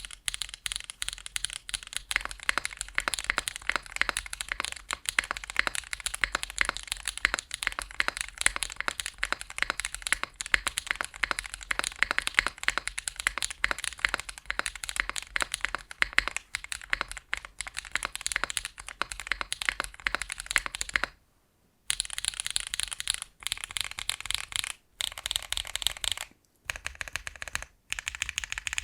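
Fast, continuous typing on a Kohaku custom mechanical keyboard with a nylon plate and Melody long-pole switches, giving a somewhat deep yet poppy clack. About 21 seconds in, the typing breaks into short bursts separated by brief pauses.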